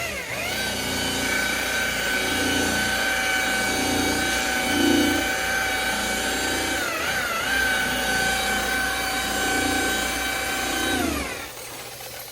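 Electric car polisher (buffer) spinning up, running at a steady high whine while buffing a paint correction test spot, dipping in pitch briefly about seven seconds in, then winding down near the end.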